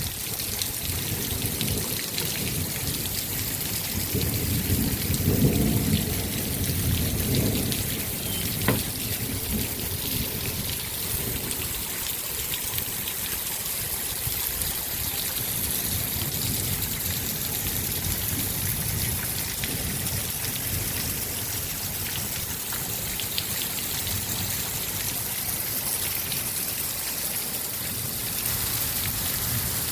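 Heavy rain falling steadily in an even hiss, with a low rumble swelling between about four and eight seconds in and a single sharp knock about nine seconds in.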